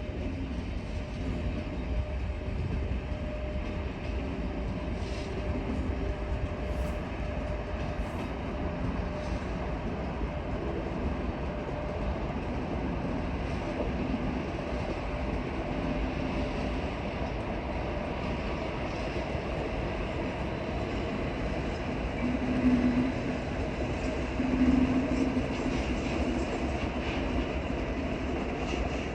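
A train running on the track with a steady rumble. Near the end come two short, louder low tones about two seconds apart.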